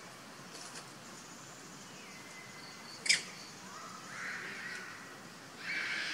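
Outdoor ambience with a steady hiss and faint high chirps, broken about three seconds in by a single sharp click. Two short animal calls follow in the second half, the first rising in pitch and the second, near the end, louder.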